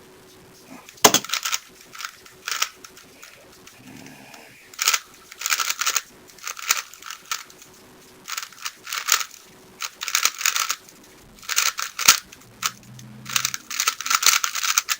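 Plastic 3x3 speed cube being turned rapidly during a timed solve: bursts of fast clicking turns broken by short pauses.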